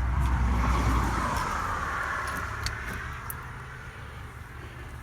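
A motor vehicle passing by, its rumble and tyre hiss loudest near the start and fading away over the next few seconds, leaving a faint low hum.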